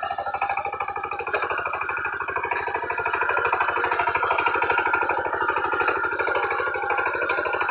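Kamco power tiller's single-cylinder diesel engine running under load as its rotary tines churn wet paddy mud, a rapid, even chugging that gets a little louder about three seconds in.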